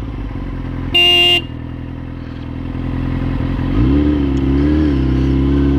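Sportbike engine idling. About a second in comes a short, loud horn beep. Near four seconds in the engine revs up and the bike pulls away.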